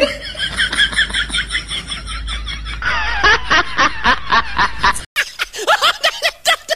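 Laughter: a fast run of high snickers, then louder laughs over the last few seconds, with a brief break about five seconds in.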